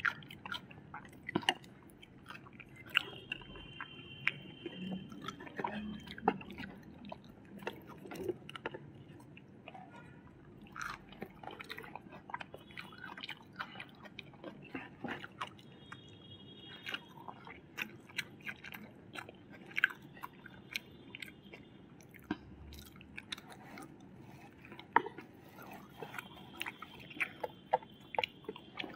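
Close-miked chewing and biting of fried chicken and noodles, with wet mouth sounds and many short sharp clicks scattered throughout.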